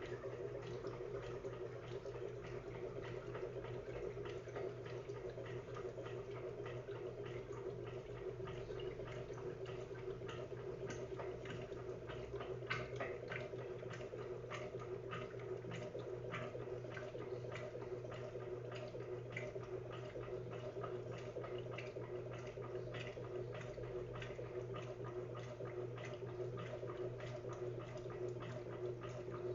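Electrolux LTD13 top-loading washing machine agitating its rinse water: a steady motor hum with irregular splashing and sloshing of water in the drum.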